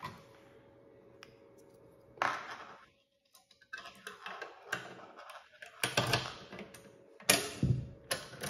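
Key working the keyed lock of a Billconch A1 steel gun safe: a run of small metallic clicks and scrapes, then a louder clack near the end as the latch lets go and the lid opens.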